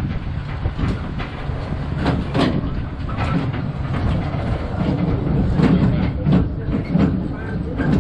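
Open-sided fairground tram cars rolling along, a steady low rumble with frequent irregular rattles and knocks from the moving cars.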